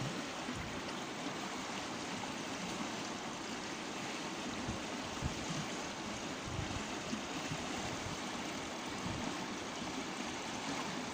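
Shallow stream current running steadily, an even rush of flowing water, with a few soft low thumps around the middle.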